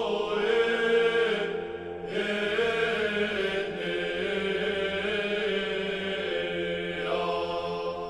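Orthodox church chant: voices sing a slow melody over a steady held drone note.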